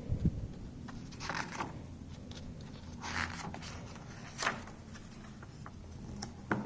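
Faint, scattered rustling and light scraping from something being handled, with a soft low bump right at the start and a few short rustles spread through the rest.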